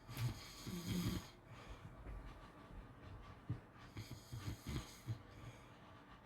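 Pit bull snoring in its sleep: one loud snoring breath at the start and another about four seconds in, the second broken up into a string of short, fluttering low pulses.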